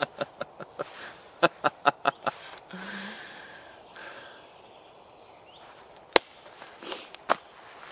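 A man laughing heartily in a quick run of short bursts for the first two seconds or so, then a breath out. A single sharp click about six seconds in.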